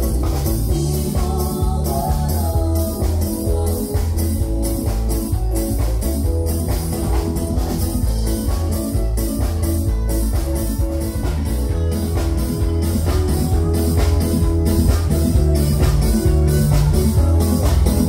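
Live band playing an instrumental passage: electric bass guitar and drum kit keep a steady beat, with no singing.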